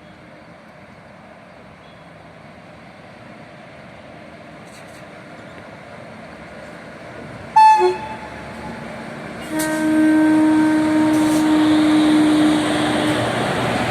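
Loaded freight train hauled by twin WAG-5HA electric locomotives approaching, its running noise growing steadily louder. After a brief loud blip about halfway through, the locomotive horn sounds one long steady blast of about three and a half seconds.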